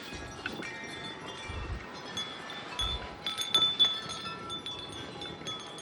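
A metal wind chime ringing in the wind, several high tones sounding and overlapping. Gusts buffet the microphone with a brief low rumble twice, a couple of seconds in.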